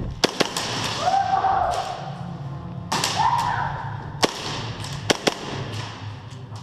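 Sharp airsoft pistol shots, about five single cracks: a quick pair just after the start, one around four seconds in, and another quick pair a second later.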